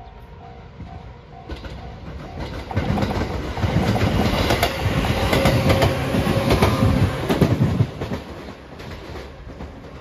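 Level-crossing warning bell ringing in a steady alternating two-tone pattern, then the La Malle de Bois sightseeing train, a converted 213-series electric multiple unit, passes from about three seconds in, its wheels clacking over the rail joints, and fades away after about eight seconds.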